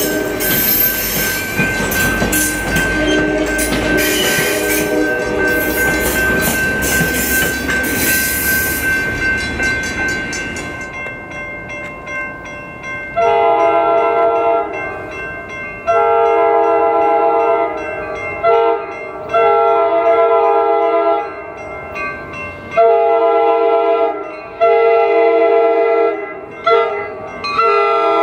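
A Coaster commuter train rolls past with steady wheel and rail noise. About halfway through, a Coaster cab car's horn sounds a series of blasts, long, long, short, long, then the same again, getting louder as the train nears. This is the standard warning signal for a grade crossing.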